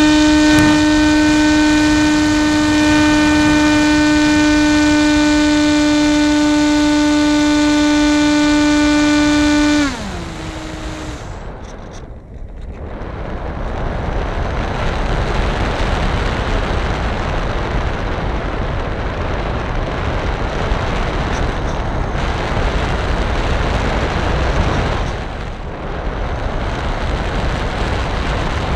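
Model airplane's motor and propeller running at a steady high whine during takeoff and climb. About ten seconds in, the pitch slides down and the whine cuts out as the throttle comes back. After that comes a steady rush of wind and airframe noise on the onboard camera's microphone while the plane flies.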